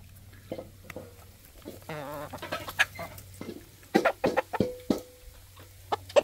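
Hens clucking as they feed, with a longer wavering call about two seconds in, a quick run of short clucks around four seconds in, and more clucks near the end.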